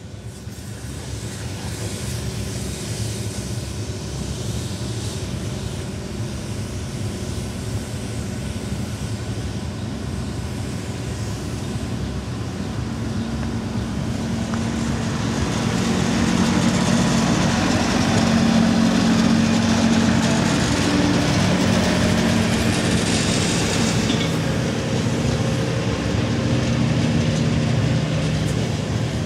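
An engine running steadily, growing louder from about halfway through, with a hiss over it that stops a few seconds before the end.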